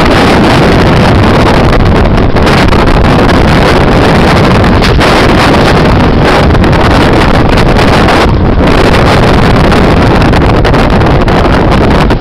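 Strong wind buffeting a handheld camera's microphone: a loud, steady rushing noise that covers everything else.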